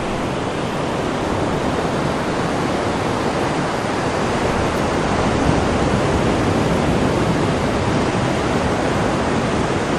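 Sea surf: a steady rushing wash of waves, even throughout with no distinct breaks.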